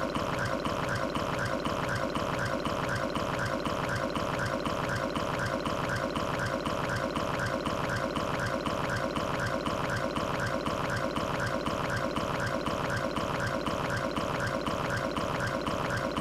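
Cartoon stomach growl: a continuous liquid gurgling and rumbling that holds steady without a break, from a belly too full of tea.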